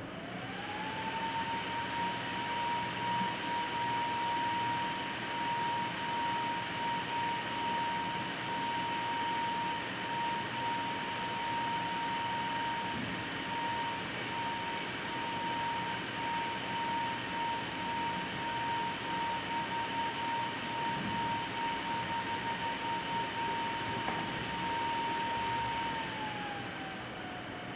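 MSI R7850 Power Edition graphics card's Twin Frozr cooling fans spinning up to full speed. A whirring rush with a steady whine rises in pitch within the first second and holds. Near the end the whine falls to a lower steady pitch as the fan speed is turned down.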